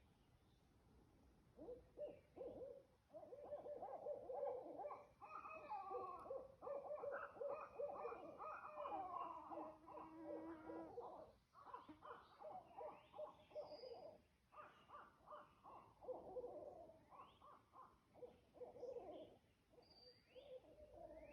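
Barred owl calling: a long run of hoots and rapid, choppy calls that starts about two seconds in and goes on with short breaks.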